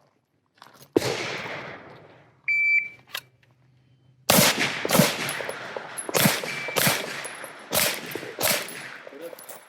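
Shot timer beep, then pistol shots fired in a string, about five loud reports over four seconds with uneven gaps. A single sharp bang sounds about a second in, before the beep.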